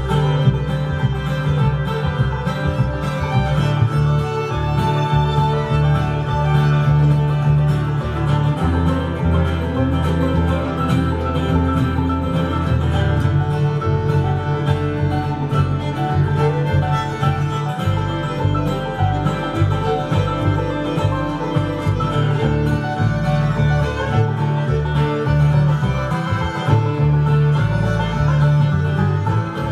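Bluegrass band playing a fast instrumental tune: fiddle, banjo and guitar over a steady, pulsing bass line.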